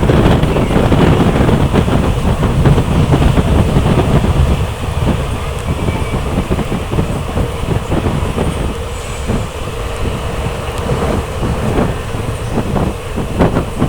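Passenger train running on rails: a steady rumble of wheels and carriages with a clickety-clack of wheels over the rail joints. It grows a little quieter after about four seconds.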